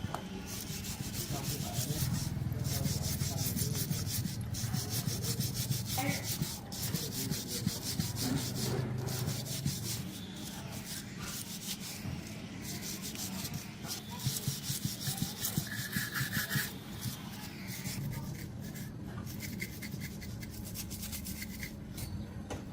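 Rapid, repeated back-and-forth rubbing strokes of hand abrasive work on an engine part, over a steady low hum.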